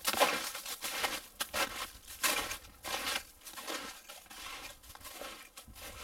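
Footsteps crunching in deep snow, about two a second at a walking pace, growing fainter as the walker moves away.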